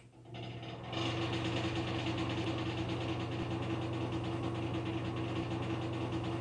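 Broan-NuTone bathroom exhaust fan switched on, its motor spinning up within the first second and then running with a steady hum and a rough, noisy buzz. This is the fan noise of a worn unit whose motor needs replacing.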